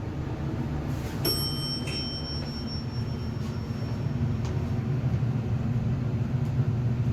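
Elevator car in motion: a steady low hum and rumble that grows slightly louder, with a single bell-like chime about a second in.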